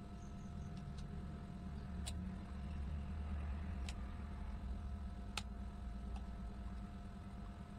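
A few sharp, separate clicks of hand tools working a small metal piece, over a low steady hum.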